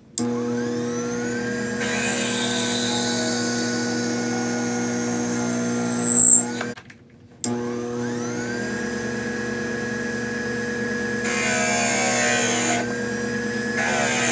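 Small cue lathe motor spinning up with a rising whine and running steadily while a quarter-inch drill bit bores into a maple cue handle. About six seconds in there is a brief sharp high squeal, then the motor stops and spins up again for a second run, which turns scratchier for a second or two near the end.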